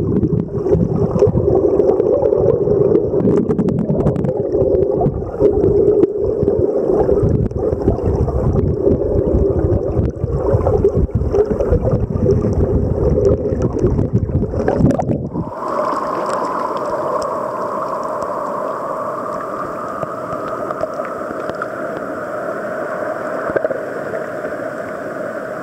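River current heard through a submerged camera: a muffled low rumble with many small knocks. About fifteen seconds in the camera comes out of the water and the sound changes at once to the steady rush of the river in open air.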